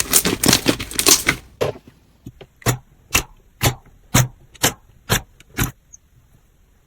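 Slime being handled: a dense run of sticky crackles and pops for about a second and a half, then a string of short, evenly spaced squishes, about two a second, that stops near the end.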